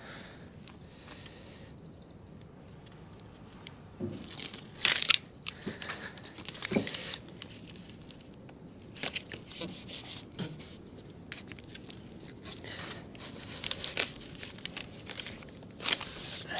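Hands pressing and smoothing adhesive flashing tape over plastic house wrap in the corners of a window opening: intermittent crinkling and rustling with scattered sharp crackles.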